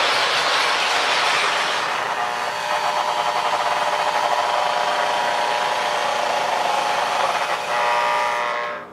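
Lionel O gauge Santa Fe F3 diesel set running on the track: a steady motor and wheel noise, joined about two and a half seconds in by a buzzy, fluttering tone. All of it cuts off abruptly near the end as the train comes to a stop.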